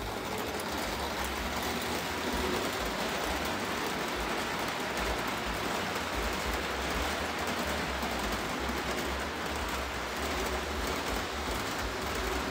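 Lionel O-gauge freight cars rolling past on three-rail tubular track: a steady rolling rush of wheels on the rails.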